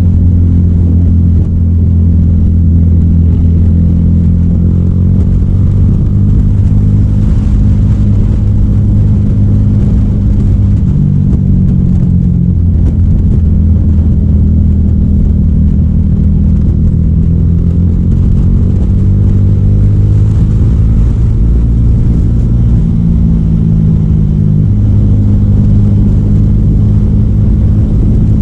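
300SR motorcycle engine running through an Akrapovic M1 exhaust, a loud, steady low exhaust note whose pitch drifts gently up and down.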